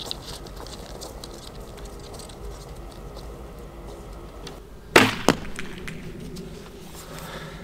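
Faint footsteps in grass, then a Black Hunter longbow shot about five seconds in: a loud sharp snap of the string on release, followed about a third of a second later by a weaker thud of the arrow striking the target.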